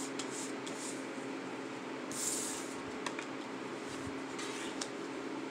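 Tarot cards handled and laid on a table: a soft swish of a card about two seconds in and a few light ticks, over a steady low hum.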